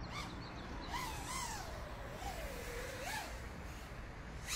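FPV quadcopter's brushless motors and 5-inch propellers whining, the pitch sliding down and back up several times as the throttle changes, over a low steady background rumble.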